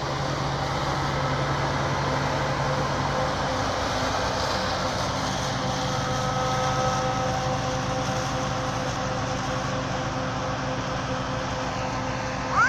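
Combine harvester running at work while harvesting barley: a steady engine and machinery drone with a few steady whining tones over it. A lower hum drops away about three seconds in.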